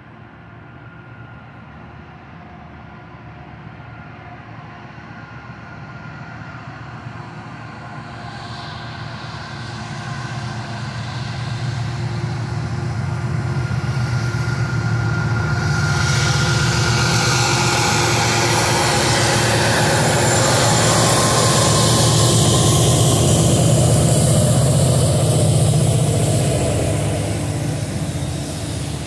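Diesel freight train with a Union Pacific locomotive leading approaching and passing. The low rumble of the diesel engines grows steadily louder, then a loud rushing of wheels on rail comes in about halfway through as the locomotives go by. The sound stays at its loudest until it eases slightly near the end as the freight cars follow.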